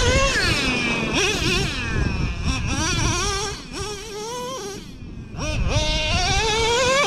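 Traxxas Revo 3.3's nitro two-stroke engine revving up and down over and over as the throttle is worked. It eases off about four seconds in, then climbs steadily again, over a low rumble.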